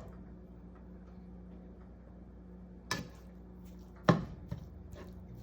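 A utensil knocking against the pan while breaking up ground beef: two sharp knocks, about three and four seconds in, the second louder, over a steady low hum.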